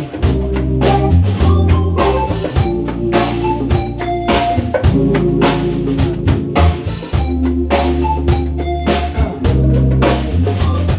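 Instrumental intro of a pop song: a drum-kit beat with kick and snare over a bass line, before the vocals come in.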